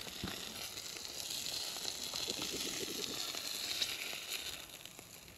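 Fish fillets searing in hot beef tallow in a skillet: a steady sizzle with small pops, dying down near the end.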